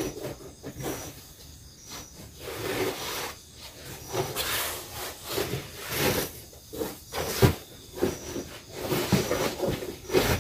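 Rustling and rubbing of a printed foam mat and a quilted blanket being lifted, shifted and laid down on a wooden plank floor, with a few knocks on the wood, the sharpest about seven and a half seconds in.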